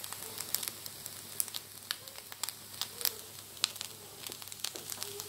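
Fried rice crackling faintly in a hot frying pan after the burner has been turned off, with scattered irregular sharp pops.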